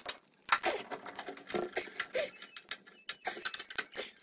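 Torx screwdriver working the screws along the bottom of a washing machine's metal side panel: an irregular run of small clicks and scrapes.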